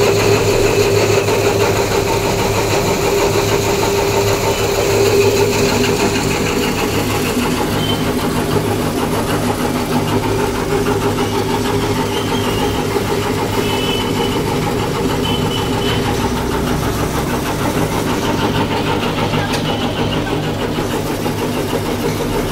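Electric-motor-driven areca nut (betel nut) cutting machine running with a steady mechanical hum.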